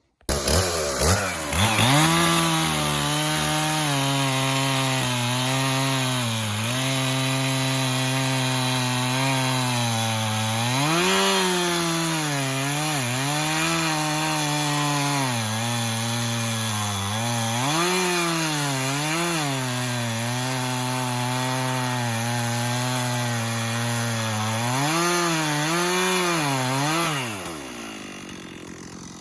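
Two-stroke chainsaw cutting the conventional wedge notch into a standing tree: the engine revs up within the first two seconds and runs at high revs in the wood. Its pitch rises briefly several times, then falls back toward idle near the end.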